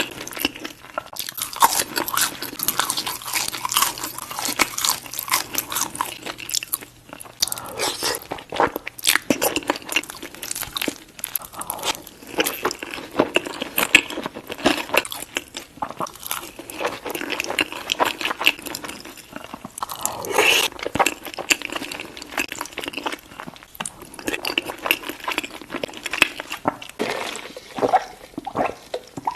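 Close-miked chewing and biting of chili cheese baked fries, a continuous run of crunchy, crackling bites with wet mouth sounds.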